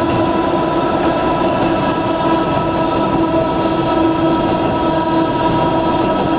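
Electric train's nose-suspended (tsurikake) traction motors and gears whining at a steady pitch as the train runs at speed, over the rumble of wheels on the rails, heard from inside the car.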